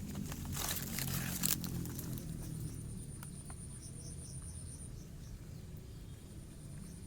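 Crickets trilling, a thin, steady high trill that stops about five seconds in and starts again near the end, with softer pulsed chirps beneath it. A brief burst of noise comes about a second in, over a low rumble.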